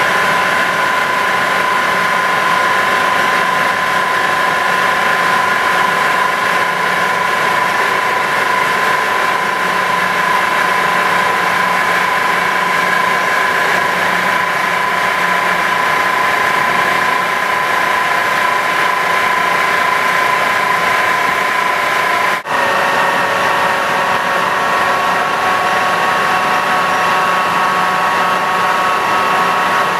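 CNC planer mill running with its right-angle milling head: a steady machine whine with several held tones over a hum. About three-quarters of the way through it drops out for an instant and comes back with the tones at slightly different pitches.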